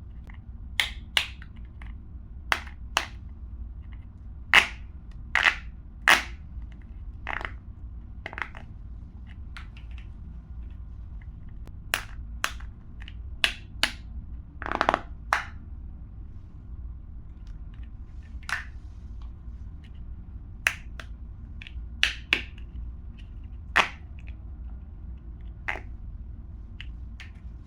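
Plastic pop tube toys popping: sharp, irregular snaps as the ridged tubes are stretched and squashed, some single, some in quick pairs, over a steady low hum.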